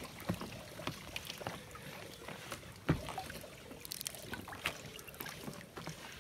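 Small clicks and knocks of gear being handled aboard a small boat, over faint water trickling and lapping; one sharper knock about three seconds in is the loudest sound.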